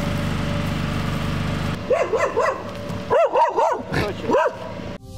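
A dog barking in quick bursts, about eight short barks in three groups, starting about two seconds in, over a steady background noise.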